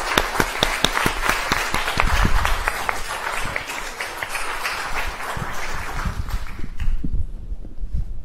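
Audience applauding after a talk, the clapping thinning and dying away near the end.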